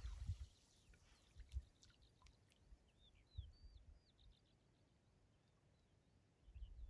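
Near silence, with faint short high chirps of a small bird during the first four seconds and a few low thuds.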